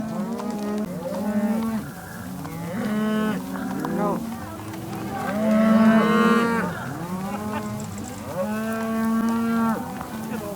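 A herd of cattle mooing over one another as they are driven along, many calls overlapping, the loudest a long moo about six seconds in.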